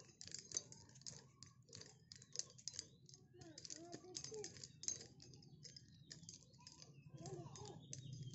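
Nunchaku being swung and caught, its linked sticks rattling and clacking in irregular light clicks, several a second.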